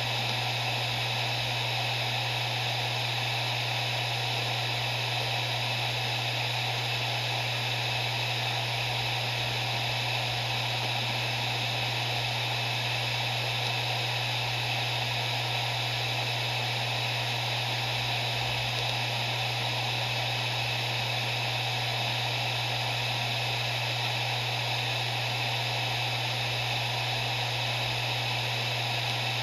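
Maxtor MaXLine Plus II 250 GB 7200 RPM hard drive spinning steadily: a constant low hum at the spindle's rotation rate under an even airy whir, with no seek clicks.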